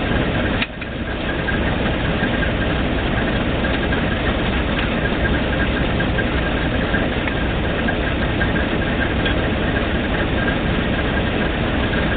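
Failing 1250 drilling rig's engine running steadily, with a faint steady high whine over it and a brief drop in the noise about half a second in.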